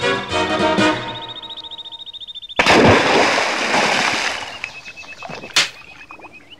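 Music stops about a second in, giving way to a high, rapidly pulsing ringing tone. A sudden loud crash of noise comes next and fades over about two seconds. A single sharp crack follows, then more high pulsing ringing.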